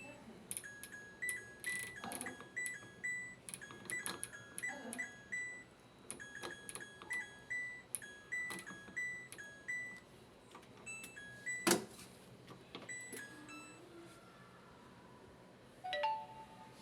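Washing machine control panel beeping as its buttons are pressed over and over: short two-note electronic beeps, each with a click, about two a second with gaps. There is one louder click a little before 12 seconds in, and a lower-pitched beep near the end.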